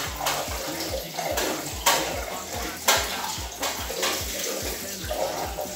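Kitchen tap running into the sink as vegetables are rinsed under it, with sharp clatters of dishes or utensils in the sink about two and three seconds in.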